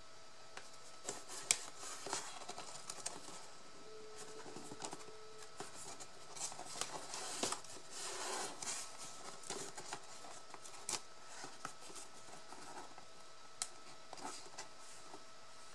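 Paper and cardboard being handled and pressed into place by hand, with scattered light clicks, taps and rustles and a denser crackle of paper about halfway through.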